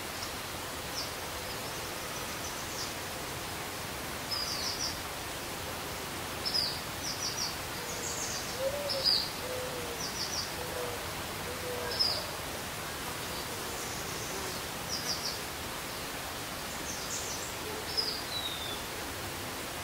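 Outdoor ambience: a steady hiss with birds chirping over it in short high notes, often in quick runs of two to four, scattered throughout, and a few soft low calls near the middle.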